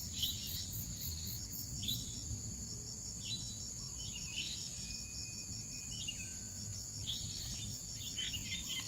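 Insects trilling steadily in a high, fast-pulsing drone, with short bird chirps breaking in every second or so.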